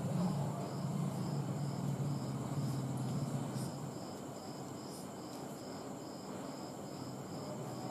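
A cricket chirping steadily, short high chirps about two to three a second, with a faint steady high whine above it. A low hum underneath fades out about four seconds in.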